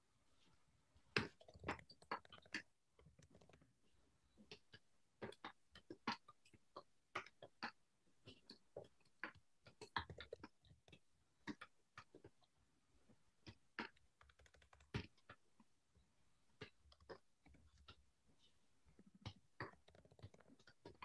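Faint computer keyboard typing: uneven keystroke clicks in short runs, with brief pauses between them.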